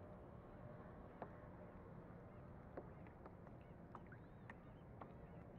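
Near silence: faint water lapping against the hull of an RC boat sitting on the water, with small scattered plinks and ticks.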